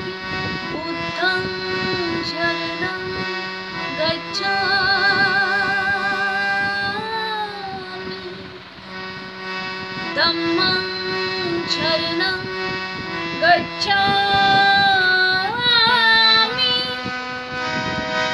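A woman singing a Buddha vandana, a Buddhist devotional hymn, in long held notes with wavering vibrato and slides between pitches.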